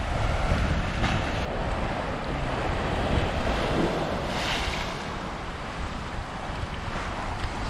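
Waves breaking and washing against a rocky shoreline, with wind rumbling on the microphone. There are louder splashes about a second in and again around the middle.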